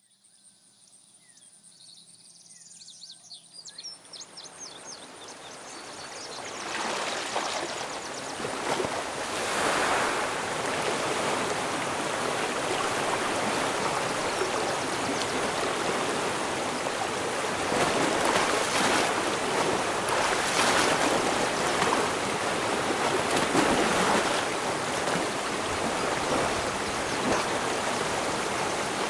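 River water flowing, fading in from silence over the first few seconds and then steady.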